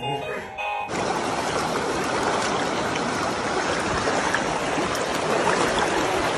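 Water rushing steadily over rocks in a shallow creek, starting abruptly about a second in.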